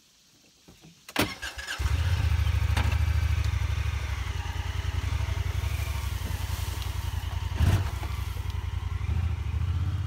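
Honda Pioneer 1000 side-by-side's parallel-twin engine catches about two seconds in after a click, then runs steadily, with a knock near the end.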